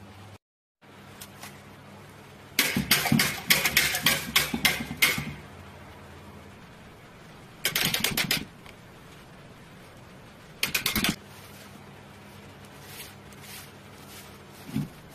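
Stainless steel wire whisk of a commercial planetary mixer clattering and knocking against its steel mixing bowl: a long rattling run of knocks, then two shorter bursts of clanks, over a low steady hum.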